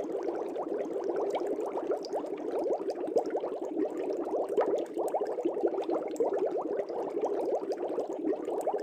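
Air bubbles rising through aquarium water in a steady, dense stream of quick rising blips.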